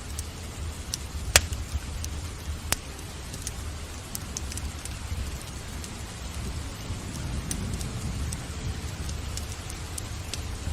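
Steady rain with a low rumble under it, mixed with the crackle of a wood fire burning in a fireplace. Many small ticks and two sharp pops stand out, about a second and a half and three seconds in.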